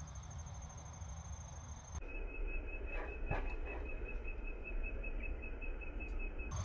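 Quiet rural outdoor ambience: a steady, high-pitched pulsing trill of wildlife. About two seconds in it switches abruptly to a lower-pitched pulsing trill, with a few faint clicks soon after and a low rumble underneath.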